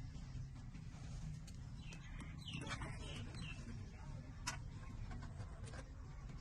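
A newborn puppy squeaking briefly, about two and a half seconds in, with scattered small clicks over a low steady hum.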